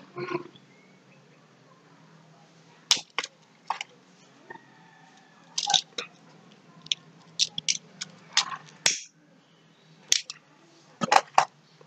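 Scattered sharp clicks and knocks, with a few short noisy bursts, over a steady low hum.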